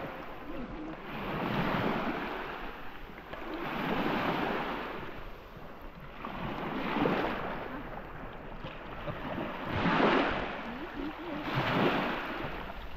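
Small waves washing up the sand in the shallows, about five swells that rise and fade one every two to three seconds.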